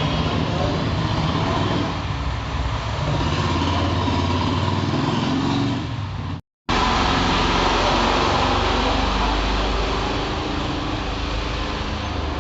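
Maruti Suzuki Alto 800's three-cylinder petrol engine running with cylinders 1 and 2 misfiring. The sound breaks off for a moment about halfway through.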